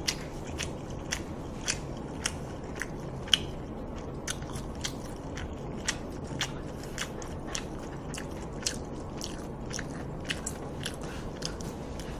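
A person chewing food close to the microphone, with short wet mouth clicks about twice a second.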